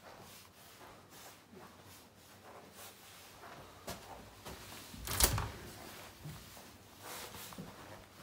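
A door pushed open, with one loud knock about five seconds in, among faint footsteps and soft handling knocks.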